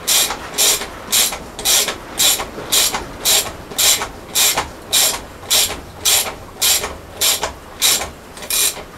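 Ratchet wrench tightening the nuts on a diesel engine's crankcase covers. Each swing of the handle gives a short burst of clicks, in an even rhythm of about two strokes a second.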